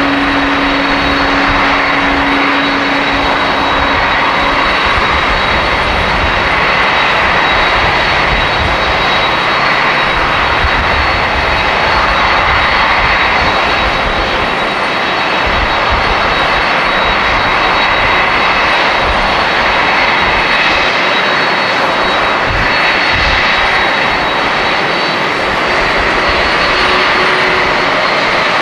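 Jet airliner engines running at taxi power: a loud, steady rush of jet noise with a thin high whine on top.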